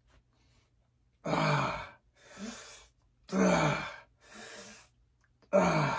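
A man exhaling hard with a short, falling voiced groan on each dumbbell rep, three times about two seconds apart, with a quieter breath after each: effortful breathing while lifting weights.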